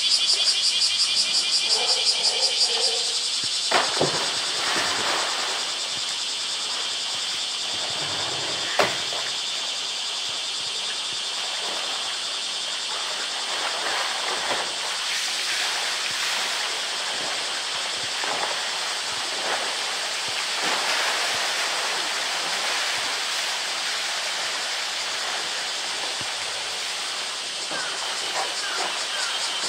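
A polar bear goes into a pool about three seconds in, then thrashes and splashes while wrestling a floating plastic barrel, with water sloshing and spattering and one sharp splash or knock about nine seconds in.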